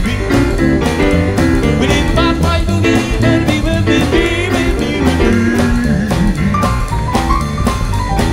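Live swing band playing an instrumental passage with a steady beat: keyboard, saxophone, drum kit and upright bass.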